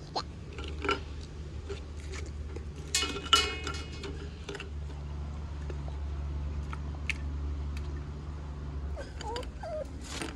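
Kitchen clatter of dishes and utensils: scattered clicks and a metal clink that rings briefly about three seconds in, over a steady low hum.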